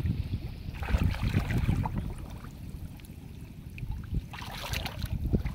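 Wind rumbling on the microphone, with splashes, drips and rustles as a monofilament gill net laden with fish is lifted out of shallow rice-paddy water.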